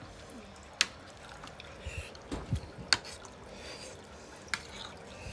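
Metal fork clicking against a ceramic plate a few times, the sharpest about a second in and about three seconds in, with wet, squishy chewing sounds.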